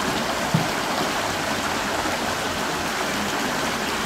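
Steady rush of running water in an animal enclosure's pool, with one short low thump about half a second in.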